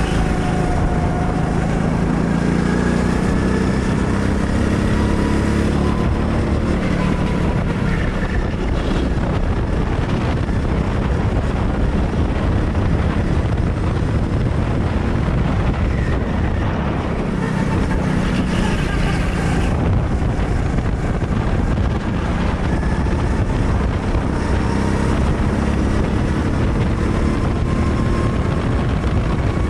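Go-kart engine running hard through a lap, its pitch dropping into corners and climbing again as the kart accelerates, with wind noise on the kart's microphone.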